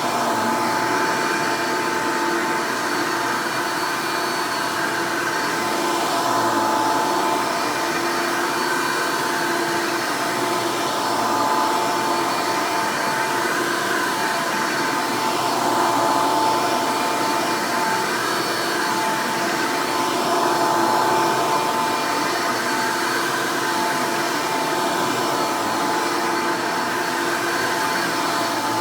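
Soft-bag Hoover Elite upright vacuum cleaner running: a steady, pretty loud motor whine with a high hum over the rush of air, swelling slightly every few seconds.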